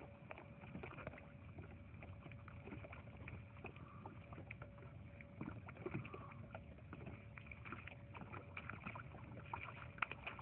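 Faint ambience on a small boat on a lake: water lapping with scattered small clicks and knocks, over a thin steady hum.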